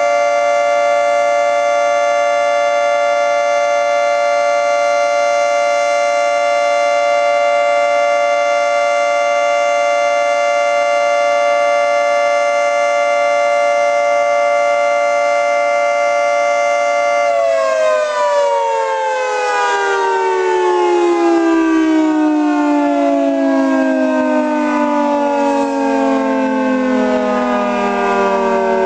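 Federal Signal 2T22 dual-tone electromechanical warning siren sounding a steady two-tone chord at full speed during its weekly test. About two-thirds of the way through it is shut off and winds down, both tones sliding steadily lower in pitch.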